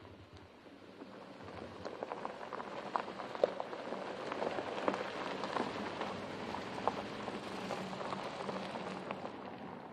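Loose gravel crunching and popping under the tyres of a Porsche Cayenne Turbo SUV driving over a dirt track, with many small stone ticks; it builds as the car comes close, then fades as it pulls away. Its engine hums faintly underneath.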